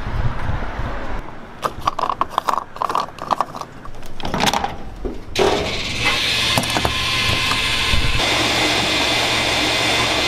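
A run of sharp mechanical clicks, then from about halfway a petrol pump nozzle pouring fuel into a car's filler neck with a steady rushing hiss.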